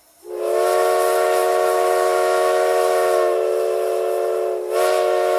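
Steam locomotive whistle blowing a long chord of several steady tones over a hiss of steam. It dips briefly near the end and then sounds again.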